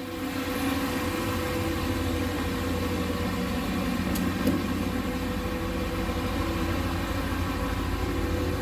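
Turbocharged 6.0-litre LS V8 idling steadily.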